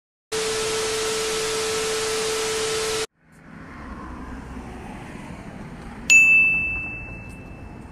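TV-static glitch sound effect: a loud hiss with a steady hum-like tone for nearly three seconds, cutting off sharply. Then faint road-traffic background, and about six seconds in a single bright ding that rings out and fades.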